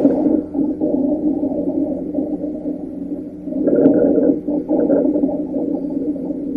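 Breath sounds heard through a stethoscope on the chest: about two breaths, each a muffled, low-pitched rush of air that swells and eases.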